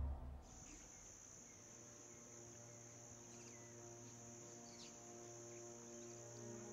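Faint night-time insect chorus: a steady, high-pitched cricket-like trill with a few short, falling chirps over it. It starts about half a second in, just as background music dies away.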